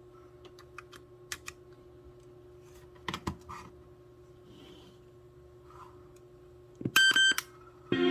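Sony WM-EX77 cassette Walkman's buttons and tape mechanism clicking: scattered faint clicks over a steady low hum, a louder pair about three seconds in and a quick run of sharp clicks about seven seconds in, just before music starts playing.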